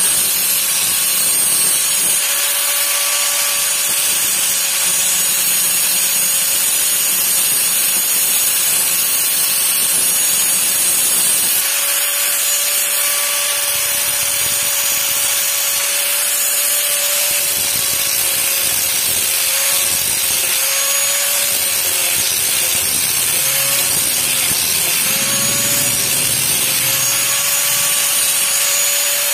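Electric angle grinder running continuously, its disc grinding down an old, pitted steel knife blade: a steady motor whine over a harsh grinding hiss. In the second half the whine dips and wavers again and again.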